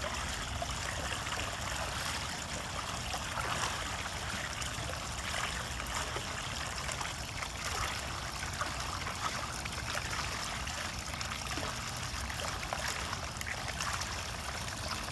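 Water trickling steadily over a small rock spillway out of a pond.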